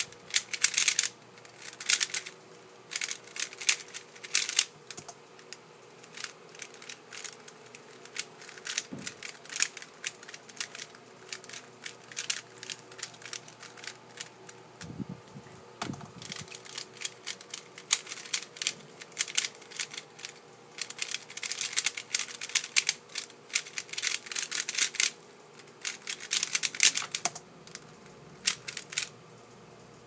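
Dayan GuHong speedcube's plastic layers clicking and clattering in fast runs of turns during timed solves: one dense run ending about five seconds in, sparser turning for several seconds, then another dense run for about ten seconds near the end.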